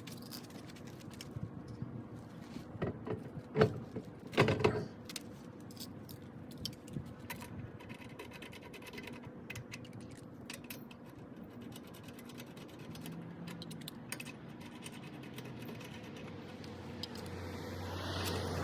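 Scattered light clinks and knocks of objects being handled, with two louder knocks about three and a half and four and a half seconds in, and a swelling rush of noise near the end.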